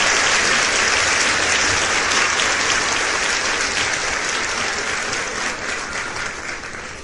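A large crowd applauding, a dense wash of many hands clapping that slowly dies away.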